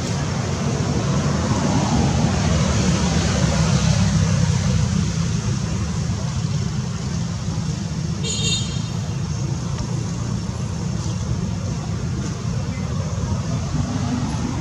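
Steady low rumble with an even hiss above it; a short high-pitched tone sounds about eight seconds in.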